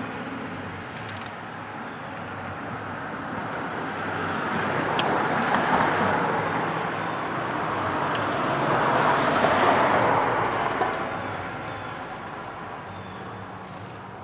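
Road traffic: vehicles driving past, the tyre and engine noise swelling and fading twice, around the middle and again a few seconds later, with a few faint clicks.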